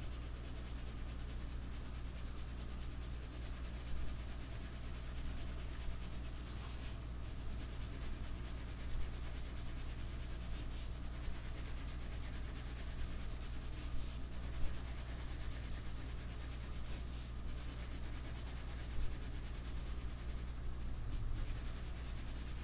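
Pencil shading on drawing paper: faint, continuous rubbing strokes of graphite over the sheet, with a few light taps, over a low steady electrical hum.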